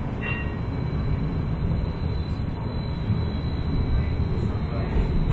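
Inekon Trio Type 121 streetcar running, heard from on board as a steady rumble of wheels on rail, with a brief faint high tone just after the start.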